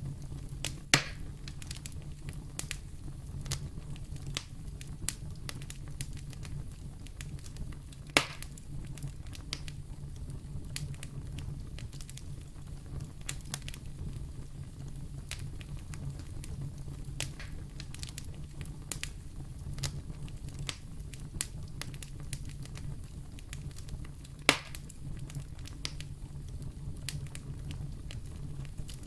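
Wood fire burning in a fireplace, crackling steadily over a low rumble, with three louder pops standing out: about a second in, about eight seconds in, and about three-quarters of the way through.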